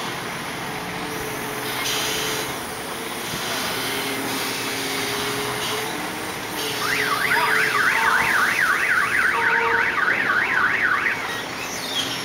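Forklift engine running steadily. About seven seconds in, an electronic alarm starts warbling rapidly up and down, about three sweeps a second, loud over the engine for some four seconds before it stops.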